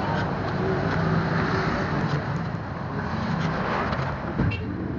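Steady outdoor background noise with a low rumble, with a short knock near the end.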